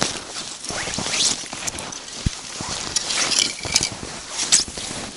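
Footsteps trudging through deep snow: irregular crunching and swishing steps.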